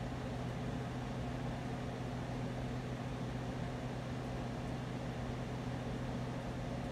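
Spirit box sweeping through radio frequencies: a steady hiss of static over a constant low hum.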